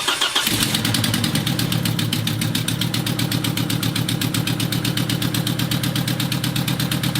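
Volvo 850's 2.5-litre 20-valve inline five-cylinder engine catching and then running rough with a fast, even pulsing. The roughness comes from the ignition leads for cylinders 4 and 5 being swapped, so the engine is misfiring.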